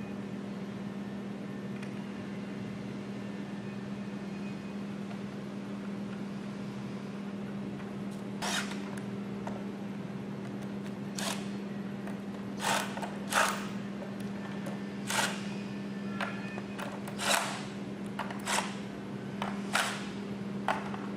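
Nuts on carriage bolts being tightened with a socket wrench. Quiet for the first several seconds, then from about eight seconds in a series of short scraping strokes, roughly one a second.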